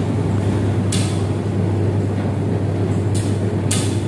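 Steady low hum and rumble of running laundromat washing machines and dryers, with three brief hisses about a second in and near the end.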